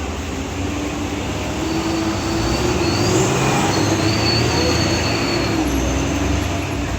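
Heavily loaded single-drive-axle truck's engine labouring under load on a steep climb, growing louder about two seconds in. A high wavering squeal runs over it for a few seconds in the middle.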